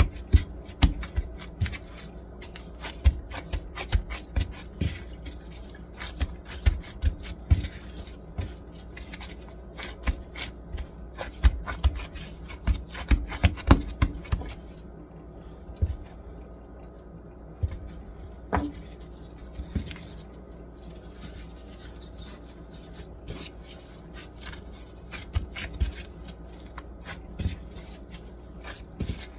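Hands working buttermilk biscuit dough on a counter: irregular pats, taps and scrapes, busiest in the first half and sparser later.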